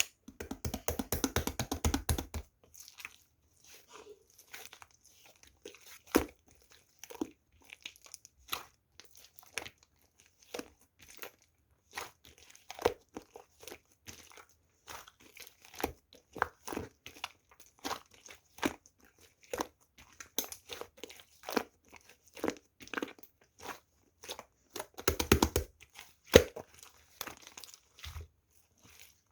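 Clay-mixed slime being squeezed, poked and stretched by hand, giving off sharp crackling clicks and small air-pocket pops. The clicks come thick and fast for the first couple of seconds and again in a short burst near the end, with scattered single pops in between.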